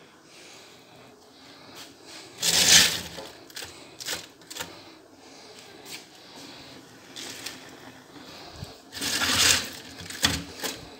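Clattering and rustling of things being handled on a kitchen counter: two short noisy bursts, one about two and a half seconds in and one near the end, with a few sharp clicks between them.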